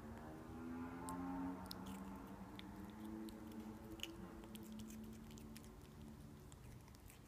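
Marble Bengal kitten chewing and biting a slice of cucumber, with scattered small crisp crunches. A steady low hum runs underneath and fades out near the end.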